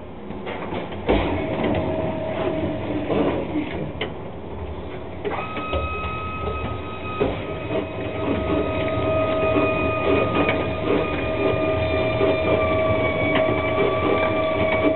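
Daniels AFMG 600 mixer grinder running in grind direction, grinding veggie burger mix out through its grinder head. A steady motor whine with a rattle of small clicks, and a second, higher whine joins about five seconds in.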